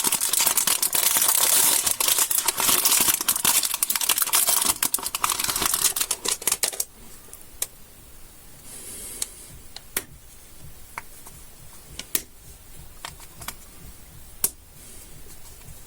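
Candy wrapper crinkling densely for about seven seconds, then stopping abruptly; after that, scattered light clicks and taps, a few seconds apart.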